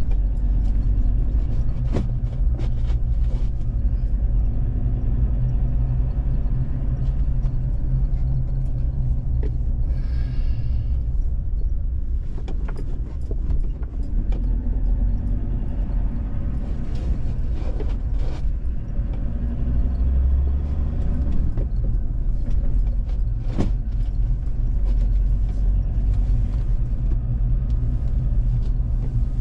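Steady low rumble of a vehicle on the move along a road, with a few sharp knocks and rattles along the way.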